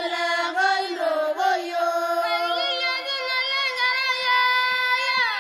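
A high voice singing slowly with long held notes and gentle slides between them, unaccompanied.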